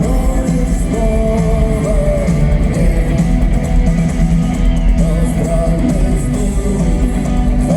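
Live rock band playing: guitars, bass and drums, with a sung melody line over them, recorded at a concert on a phone.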